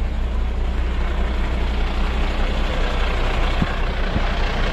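Fire engine idling: a steady low engine rumble, with two light knocks near the end.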